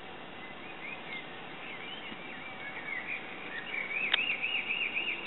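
A songbird singing a run of varied chirping phrases, then a quick run of repeated looping notes, about five a second, near the end, over a steady hiss. A single sharp click about four seconds in.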